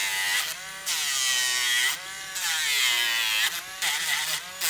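Electric pet nail grinder whining in several short passes, its pitch sagging as the sanding drum bears on the dog's nail and rising again as it eases off.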